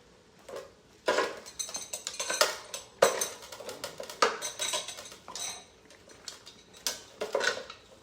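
Hand tools and small metal hardware clinking and clattering in a run of sharp knocks, while a skid steer's windshield wiper is being taken off.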